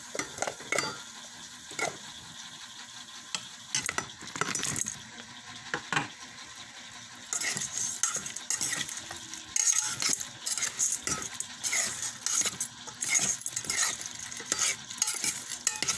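A utensil stirring and clinking against a rice cooker's inner pot while chopped onion, garlic and shrimp sizzle. There are many sharp clicks and scrapes throughout, and the sizzling gets louder about seven seconds in.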